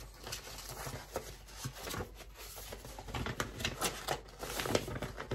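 Paper rustling and crinkling in irregular crackles as a folded sheet of paper is unfolded and handled.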